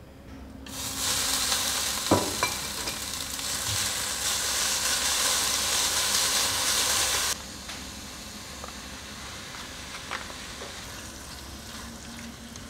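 Wide tofu noodles sizzling in a frying pan as they are stir-fried with wooden chopsticks. The loud sizzle starts about a second in and cuts off sharply after about six seconds. Quieter frying with light clicks of the chopsticks follows once the jjajang sauce is in.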